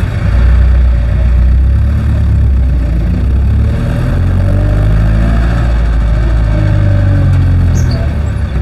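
Jeepney's diesel engine running loud under load, heard from the front seat of the cab; its pitch dips a little before four seconds in and then climbs again as it pulls along.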